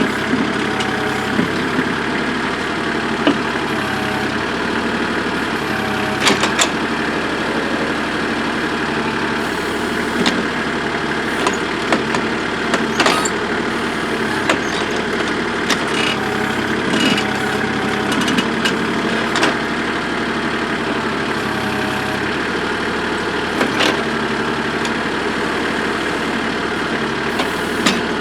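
A backhoe's engine running steadily while its bucket scrapes and breaks up hard lamproite rock, with scattered sharp clanks and knocks from the bucket striking stone.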